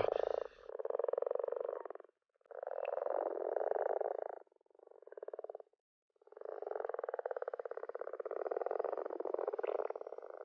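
Common frogs giving their mating calls in full chorus. The calls come in four bouts of rapid purring croaks; the third is short and fainter, and the last runs about four seconds.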